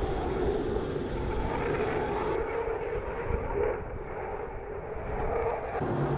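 Eurofighter Typhoon jet engine noise, a steady rushing sound with a rumble. The sound changes abruptly twice, about two and a half seconds in and near the end, as at cuts between shots.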